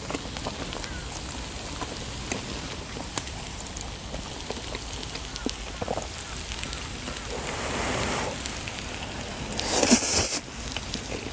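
Food sizzling and crackling steadily on a hot griddle pan, with a few light clicks of metal chopsticks. About ten seconds in comes a loud slurp of black-bean noodles, the loudest sound.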